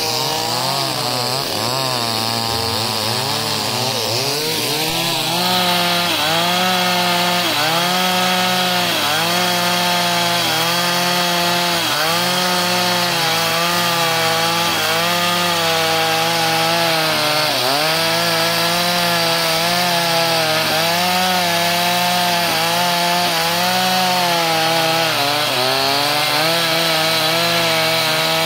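Two-stroke chainsaw running at high revs while ripping a log lengthwise along the grain. The engine note wavers for the first few seconds, then settles higher from about five seconds in, dipping in pitch again and again as the chain bites into the wood.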